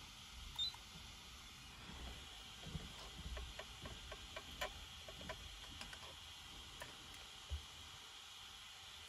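Faint scattered clicks and light taps from hands working a radio-control transmitter and the car on a workbench, with a short high beep about half a second in.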